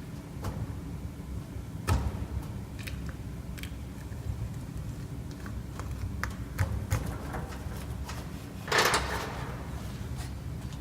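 Scattered metallic clicks and knocks as the shaft of a power steering rack is fitted into its housing, with a sharper knock about two seconds in and a brief rushing scrape near the end, over a steady low hum.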